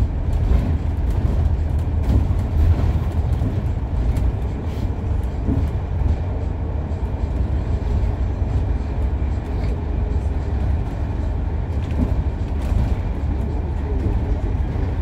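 Steady low rumble of a moving double-decker bus heard from inside, a New Routemaster hybrid, with engine and road noise and occasional faint clicks and rattles from the body.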